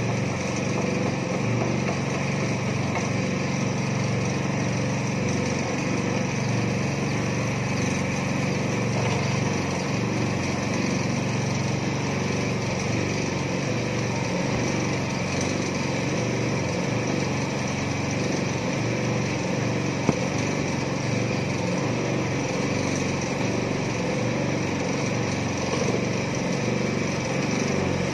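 Small petrol engine of a mini concrete mixer running steadily at a constant speed, with one brief sharp knock about twenty seconds in.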